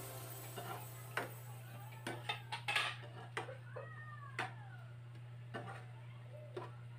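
A metal spatula clicking and scraping against a frying pan as chicken feet are stirred, with a steady low hum underneath. A cat meows a few times, most clearly around the middle.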